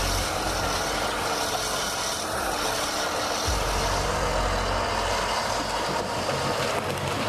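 Heavy machine's engine running steadily under a dense mechanical noise, with a low rumble that fades and returns.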